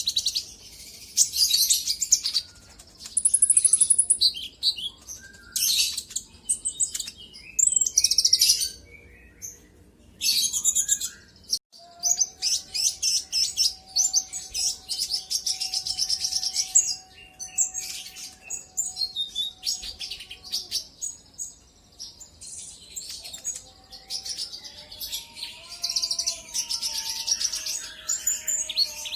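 Kolibri ninja sunbird singing: bursts of rapid, high twittering trills, each a second or two long, repeated one after another. A faint steady tone lies beneath the song for several seconds in the middle, and wavering tones come in near the end.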